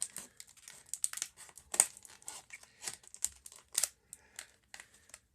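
A Northwest Trail tactical folding knife's blade slicing through a thin material in a cut test: an irregular run of short, sharp rasping and crinkling strokes, the loudest about two seconds in.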